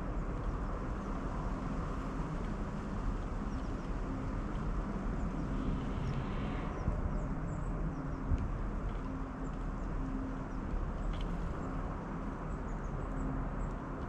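Steady low outdoor rumble with a faint hum that comes and goes, and a few faint high ticks.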